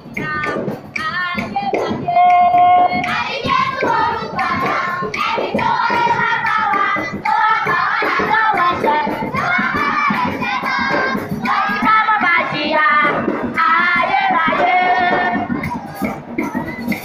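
A group of women singing together into a microphone, with handclapping and percussion beating along.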